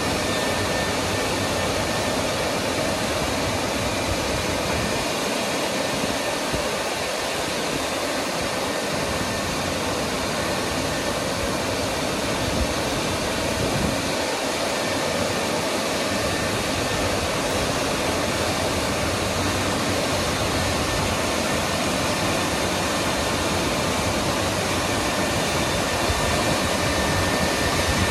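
WashTec EasyWash rollover car wash working over a car, a steady rushing noise of machinery and water or air.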